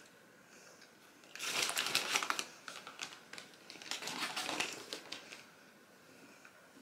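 Paper bag crinkling and rustling as it is handled, in two bursts: about a second and a half in, and again around four seconds in.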